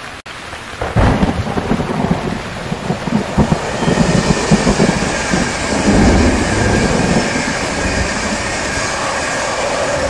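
Heavy rain hissing steadily, with a rolling rumble of thunder that breaks in suddenly about a second in and keeps rumbling.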